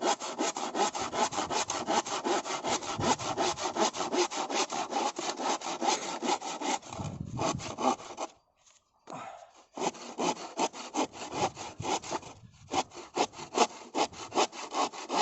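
Hand saw cutting through firewood in quick, even back-and-forth strokes, about five a second. The sawing pauses briefly about eight seconds in, then picks up again.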